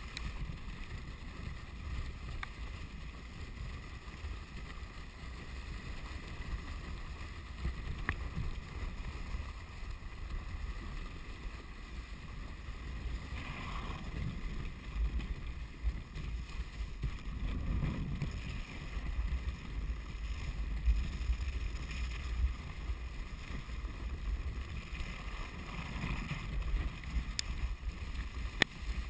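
Dog sled gliding over snow behind a running dog team: a steady rushing hiss of the runners with low wind buffeting on the microphone, swelling briefly a few times.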